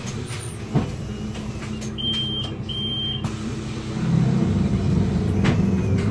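Solaris Urbino 8.9LE city bus engine running at low speed, heard from inside the bus, getting louder about two-thirds of the way through as the bus moves forward. A sharp click comes just under a second in, and two short high beeps sound near the middle.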